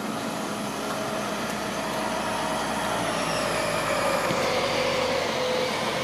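Crane running steadily as it swings a rooftop HVAC unit down, with a thin whine that slowly falls in pitch.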